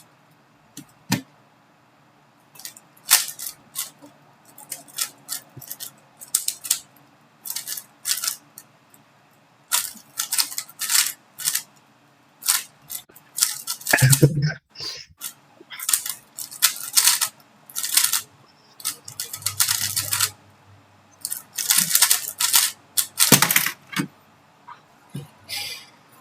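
A 3x3 speedcube being turned fast during a timed solve: irregular runs of quick plastic clicks and clacks, with short pauses between bursts. A brief lower sound comes about fourteen seconds in.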